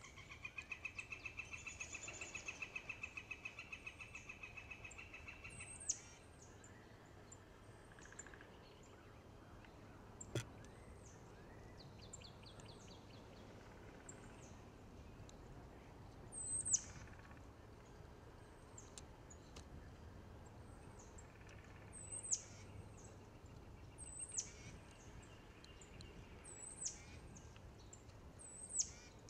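Wild songbirds calling: a fast, even trill for about six seconds, then sharp, high whistled notes that slide steeply down, repeated every few seconds. A single click comes about ten seconds in.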